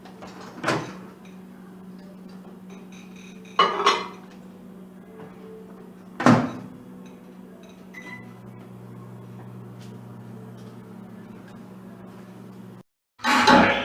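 Kitchen sounds: a steady appliance hum, with three short clatters, about a second in, around four seconds and around six seconds. A second, lower hum joins about eight seconds in.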